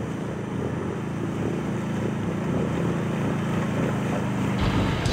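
ATV (quad bike) engine running as the machine wades through a river, growing steadily louder as it comes closer.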